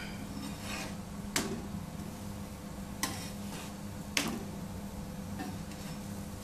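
A steel spatula clicks sharply against a flat griddle pan three times while turning rice pathiri, over a steady low hum.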